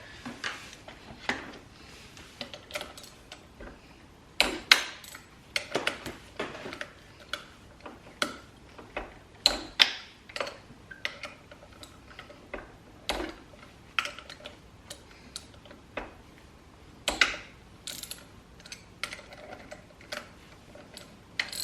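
Irregular sharp clicks and light metal knocks from a ratchet and socket working the clutch spring bolts loose on a two-stroke dirt bike's clutch.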